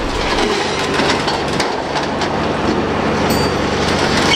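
Heavy recovery equipment working a derailed tank car: diesel engines run steadily under repeated metal clanks and scraping, with a brief high metallic squeal near the end.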